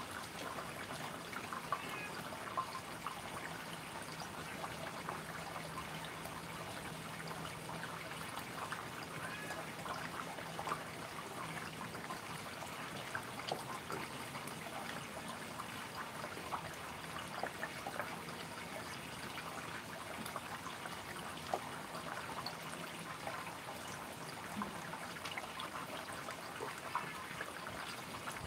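A cat feeding at its bowl, its mouth making a steady run of quick, irregular small wet clicks.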